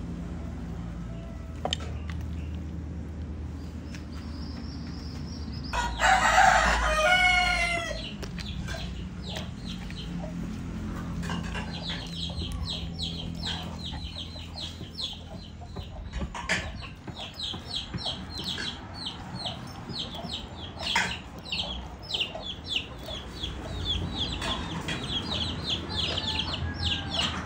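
A rooster crows once, about six seconds in, a single call of around two seconds and the loudest sound here. Later comes a long run of rapid, high chirping, with a few sharp knocks of a cleaver on a wooden chopping board.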